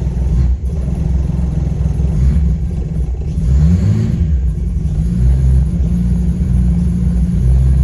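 Holden VL Turbo's Nissan RB30ET turbocharged straight-six running on E85 ethanol, idling through its warm-up after a cold start, with one brief rev that rises and falls about three and a half seconds in.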